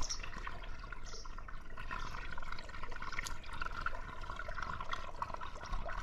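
Swimming pool water trickling steadily, with many small drips and splashes.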